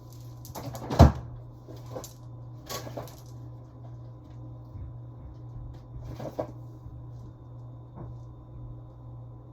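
Knocks and clunks of kitchen doors and containers being opened, shut and handled, the loudest a sharp bang about a second in, with further knocks around two, three, six and eight seconds, over a steady low hum.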